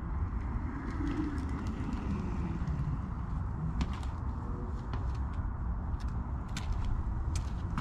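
Meepo Hurricane electric skateboard rolling over paving stones, its belt-driven rear motors giving a falling whine as it slows to a stop. Then a few sharp knocks as the board is kicked up and lifted.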